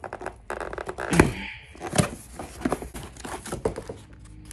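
Cardboard boxes and paper packing rustled, crinkled and torn while parts are unpacked from a shipping carton, with two louder knocks about a second and two seconds in.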